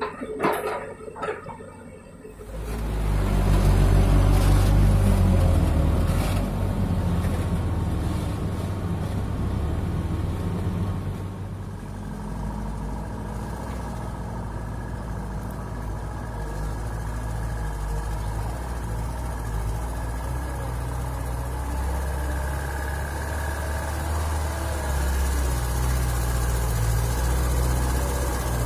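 Heavy diesel engines running steadily, a low rumble that comes in loud about two and a half seconds in. Near the end the engine of a yellow Mitsubishi dump truck grows louder as the truck drives up close, loaded with soil.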